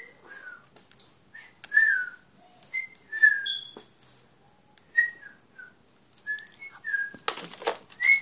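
A series of short, high whistle-like chirps, each falling in pitch, coming at uneven intervals, with scattered small clicks and a burst of rustling about seven seconds in.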